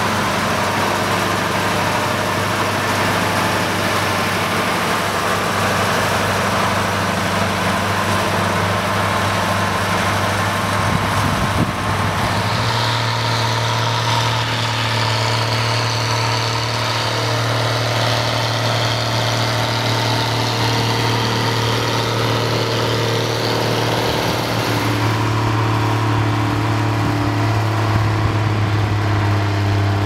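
Large Schlüter tractors' diesel engines running steadily under load while pulling a harrow and a plough through soil. The engine note shifts twice, about 12 and 25 seconds in, and a higher whine sounds over the middle part.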